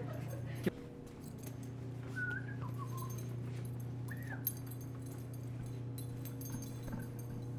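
Labrador puppy giving a few short, high whines, over a steady low electrical hum.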